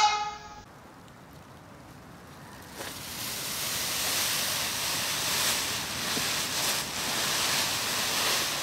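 A plucked string note dies away at the start. About three seconds in, a steady hissing rush of noise rises, like surf, and holds until it cuts off suddenly at the end.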